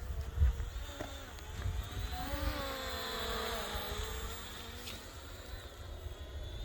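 F89 toy quadcopter drone buzzing in flight, its motor pitch rising and then falling a few seconds in. Wind rumbles on the microphone.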